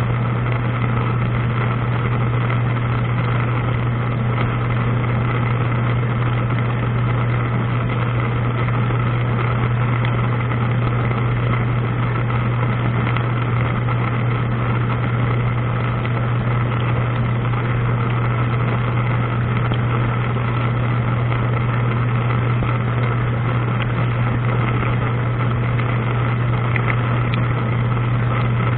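Dishwasher running, heard from inside the tub: a steady motor hum under an even wash of spraying water.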